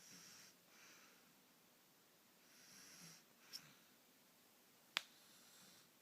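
A young child snoring faintly in sleep, breathy rasping breaths coming every second or two. A small click about three and a half seconds in and a sharper, louder click about five seconds in.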